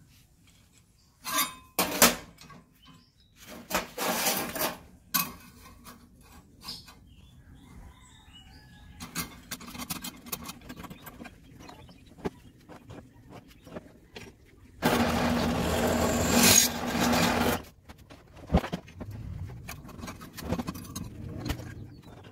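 Metal knocks and rattles from a steel C-clamp and workpiece being handled and clamped on a drill press table, in scattered clusters. About fifteen seconds in, a loud burst of noise with a steady low hum runs for about three seconds and stops.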